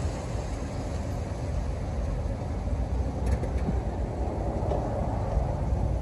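Car running at low speed, a steady low rumble that does not rise or fall.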